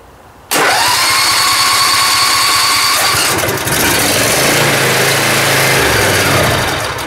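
John Deere Z355R zero-turn mower's engine being cranked by its electric starter for about six seconds. The starter whine rises quickly and then holds steady, and the engine is not yet running. The cranking is meant to draw fuel back through the line by vacuum after the mower has sat.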